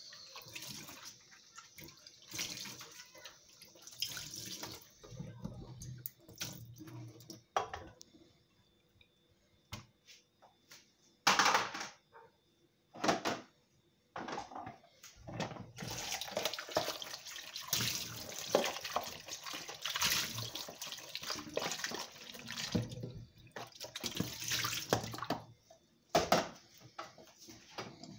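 Kitchen tap running as a pan is rinsed under it, the water flowing in spells and stopping in between, with two brief knocks midway.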